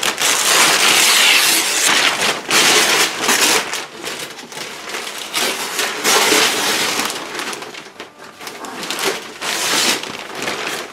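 Christmas wrapping paper being ripped and pulled off a large wrapped flat-screen television, in several loud tearing, crackling rustles with quieter handling between.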